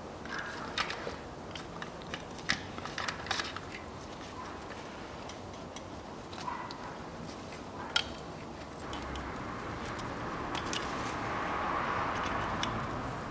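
Small clicks and taps of gloved hands fitting the plastic diesel injector fuel return line and its clips, with one sharp click about eight seconds in, then a rustling that swells from about nine seconds on.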